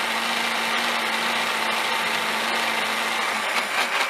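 Hand-held immersion blender running steadily, blending hummus in a tall jar. Its steady hum breaks up about three and a half seconds in.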